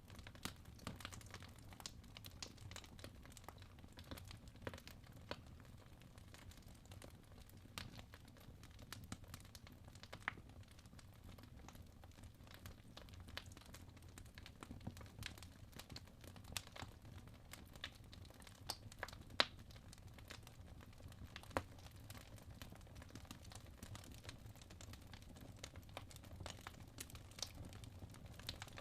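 Wood fire burning in a fireplace: irregular crackles and sharp pops from the burning logs over a low, soft rumble. Two louder pops come about two-thirds of the way through.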